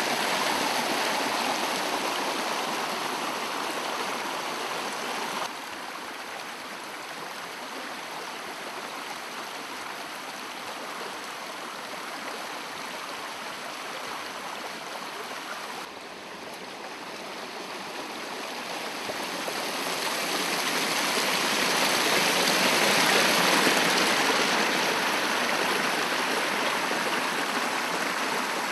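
Rushing water, a steady noisy flow from a stream swollen by heavy rain. It drops suddenly in level about five seconds in and again about sixteen seconds in, then grows louder, loudest a little past the three-quarter mark.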